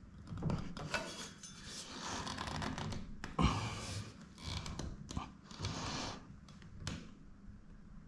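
Hands adjusting a matte black bath spout on its wall fitting with a spirit level held against it: irregular scraping and rubbing with a few clicks, and one sharp knock about three and a half seconds in.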